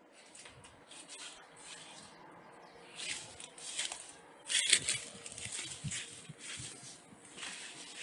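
Footsteps rustling through dry grass and weeds in irregular steps, getting louder after the first few seconds, with one sharp click about halfway through.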